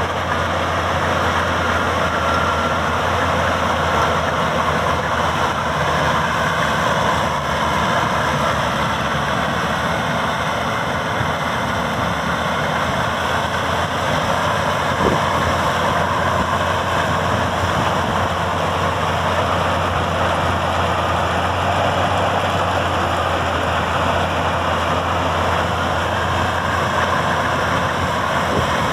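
Maxxi Bimo 102 combine harvester running steadily, its engine hum under a dense, even machinery noise that holds without change.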